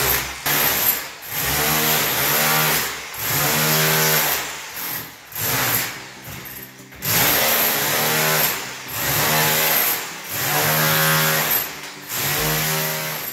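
Makita rotary hammer with a flat chisel bit hammering gypsum plaster off a wall. It runs in repeated bursts of about a second with short pauses between, chipping the plaster back to the cement underneath.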